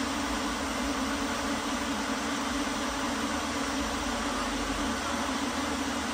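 Steady, unchanging hum of a large swarm of light-show drones hovering in formation, over an even hiss.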